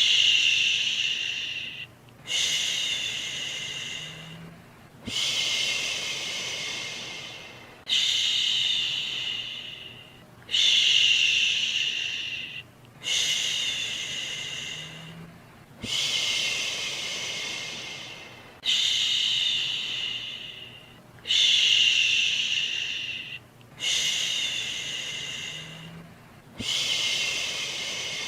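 A soothing "shhh" shushing sound for lulling a baby to sleep, repeated about every two and a half seconds. Each shush comes on suddenly and fades away, about eleven in all, with a faint steady hiss between them.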